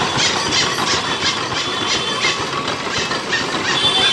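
Belt-driven sugarcane juice machine running, its ribbed steel rollers turning as cane is fed through, with a steady mechanical clatter of about three knocks a second. A thin high squeal joins near the end.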